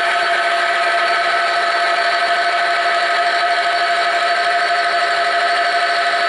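Friction test stand's electric motor spinning a loaded bearing surface in engine oil with a micro-ceramic additive, under a test weight: a loud, steady whine with several steady tones over a hiss.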